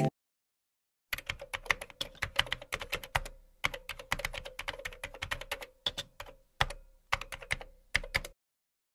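Rapid, irregular clicking of typing on a computer keyboard, starting about a second in and stopping shortly before the end, with a faint steady hum behind it.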